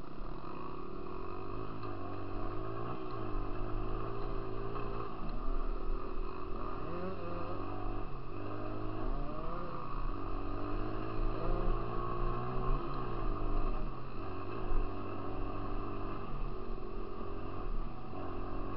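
Dirt bike engine running under way along a gravel trail, revving up and easing off, its pitch rising and stepping down several times.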